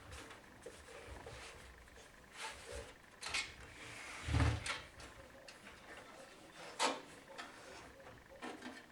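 Handling noise from working on a PC case: scattered clicks, rubbing and light knocks of parts, with a heavier thump about four and a half seconds in and a sharp click near seven seconds.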